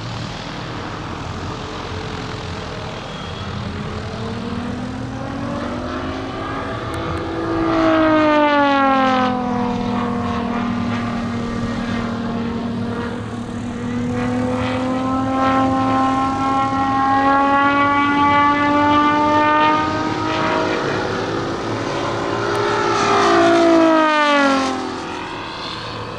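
Large radio-controlled F4U Corsair scale model plane flying passes overhead, its engine and propeller drone rising and falling in pitch as it comes and goes. About 23 seconds in it makes its loudest fast pass, the pitch dropping steeply as it goes by.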